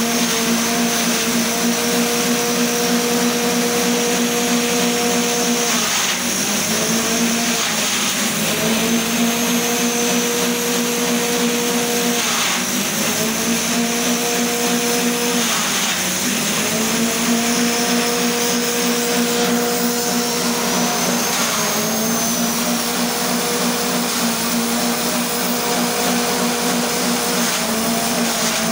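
Small petrol engine driving a grass chopper (forage cutter), running fast with a steady hum and a high whine from the spinning cutter. Every few seconds its pitch sags briefly as stalks are pushed into the blades and chopped, then climbs back.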